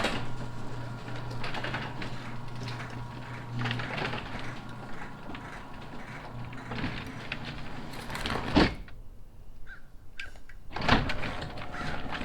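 Electric garage door opener running as the door travels, a steady motor hum with rattling, ending in a sharp clunk about eight and a half seconds in. The motor starts up again near the end.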